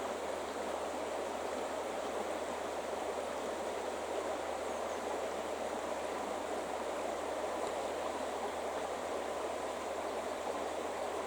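River water flowing and rushing steadily, an even noise without breaks.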